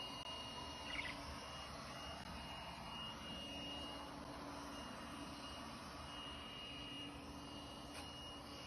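Steady machine drone with a faint high whine and a lower hum running through it, and a brief high chirp about a second in.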